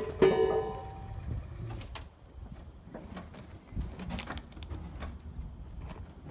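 A ringing metal clang from a heavy steel railway wheelset hanging on crane chains, about a quarter second in, ringing on for about a second. Lighter knocks and scrapes follow over a low rumble as the wheelset is guided down onto the rails.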